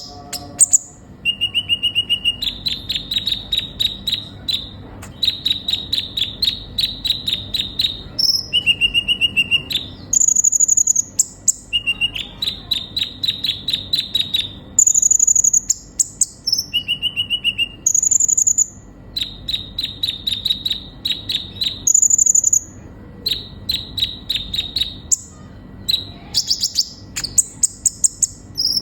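Kolibri ninja sunbird singing: phrase after phrase of rapid ticking trills, each broken by a short high whistled note, with brief pauses between phrases.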